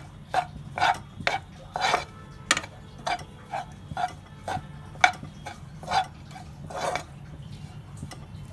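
Metal spoon scraping and knocking against a kadhai, about two strokes a second, as ground chironji paste is stirred and roasted in ghee.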